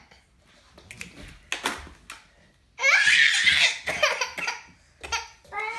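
A toddler laughing loudly for about two seconds, starting about three seconds in. Before it there are a few light knocks.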